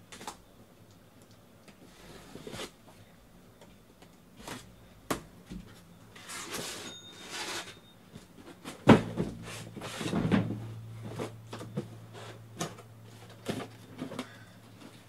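A cardboard shipping case of trading-card boxes being opened and unpacked by hand: scattered knocks and rustles of cardboard, two rasping swishes around the middle, and a loud thump a little past the middle as the boxes are handled and set down.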